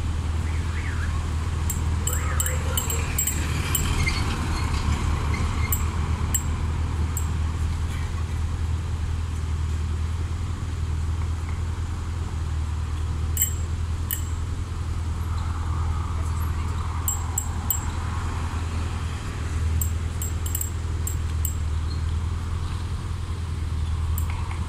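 Urban street ambience: a steady low traffic rumble from cars at an intersection. Clusters of faint, high metallic clicks and jingles come at several points.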